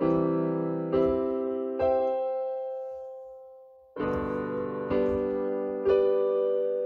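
Slow background piano music: a chord and two notes struck about a second apart, a pause of about two seconds while they ring and fade, then three more chords about a second apart.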